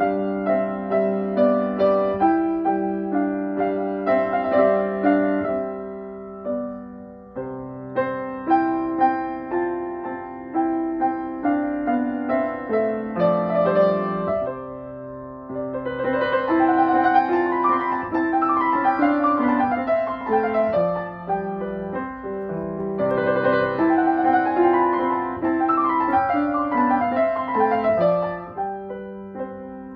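Steinway & Sons grand piano being played: slower notes over held bass notes at first, then faster, denser runs of notes from about halfway through.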